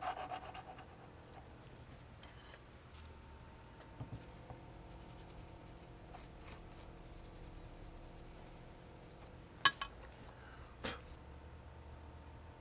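Quiet bench-work handling with a faint steady hum: small clicks and a soft brushing, then a sharp knock about two-thirds of the way in and a smaller one about a second later, as a steel part is handled against the wooden rifle stock.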